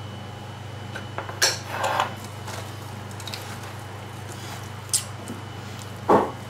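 Hands kneading chunks of meat and sliced onion in a stainless steel bowl, with a few knocks and clatters. A spice tin is set down on the wooden board about a second and a half in, and a louder thump near the end is a glass oil bottle being put down on the board.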